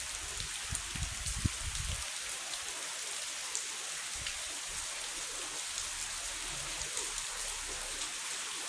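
Steady rain falling: an even hiss with scattered ticks of drops. A few low rumbles come through in the first two seconds.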